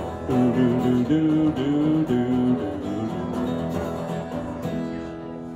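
Steel-string acoustic guitar playing the closing bars of a song, ending on a chord left to ring and fade out.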